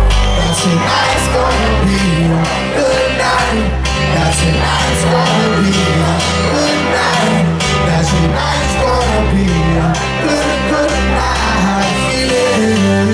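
Live pop-dance concert music through a venue sound system: a steady electronic beat and bass line with a male vocal over it.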